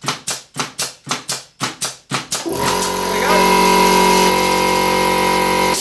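A pneumatic pin nailer fires in quick succession, about four shots a second. About two and a half seconds in, a direct-drive air compressor's motor starts with a rising whine and runs loudly, kicking in to refill the tank after the pressure has been drawn down by continuous firing. The sound cuts off suddenly at the end.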